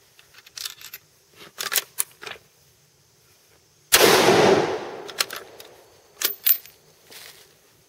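A 260 Ackley Improved bolt-action rifle firing one Cream of Wheat fireforming load: a single sharp, loud shot about four seconds in that dies away over about a second. Light metallic clicks of the rifle's bolt being worked come before and after the shot.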